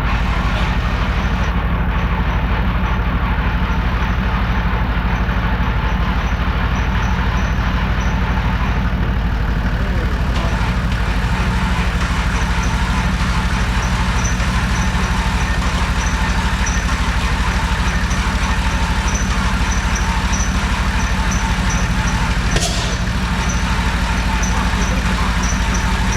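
A vehicle engine idling steadily and evenly throughout, with a faint regular ticking above it and a brief sharp knock about three-quarters of the way through.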